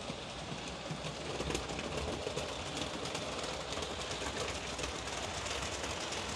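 Roco class 186 HO-scale model electric locomotive running with its freight wagons on the layout: a steady rumble with light clicking of wheels on the rail joints, getting a little louder about a second in.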